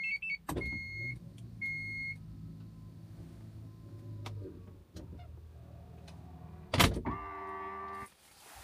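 Kia Carnival power tailgate closing by remote: warning beeps, then the motor humming steadily as the tailgate lowers. It shuts with a loud thump about seven seconds in, followed by a short motor whir as the latch pulls it closed.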